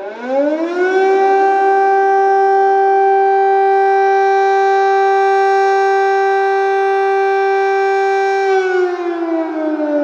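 Air raid siren sounding an alert: it rises in pitch over the first second, holds one steady tone for several seconds, then begins to wind down about eight and a half seconds in.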